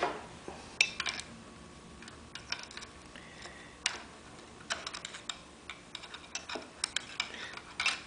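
Small metal clicks and taps of a screwdriver on a screw being threaded into an outboard carburetor body, coming irregularly in short clusters.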